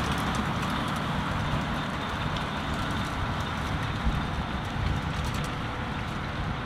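Valtra tractor engine running steadily as it pulls a Claas Liner 3100 twin-rotor rake through cut grass, rowing it up; the sound eases off slightly as the tractor moves away.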